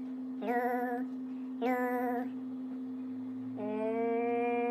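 A voice singing "lu": two short notes with a wavering pitch, then a long held "luuuu" from about three and a half seconds in, over a steady low hum.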